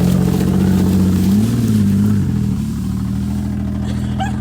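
Old junk car's engine running as the car is driven off, revving up briefly about a second and a half in, then settling back to a steady run.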